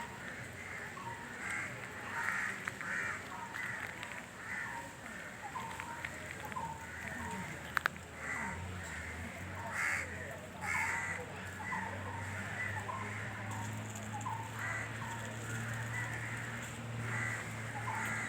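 Birds calling over and over, many short calls overlapping, with a low steady hum coming in about halfway through.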